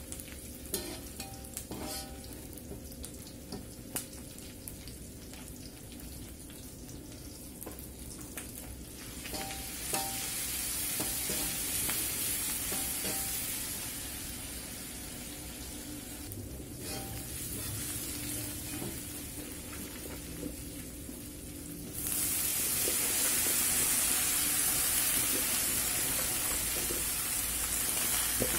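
Food sizzling in hot oil in a wok while a metal spatula stirs and scrapes it, with small clicks of the spatula against the pan early on. The sizzle grows louder about ten seconds in and jumps sharply louder about three-quarters of the way through, with chopped genjer stems frying in the wok by the end.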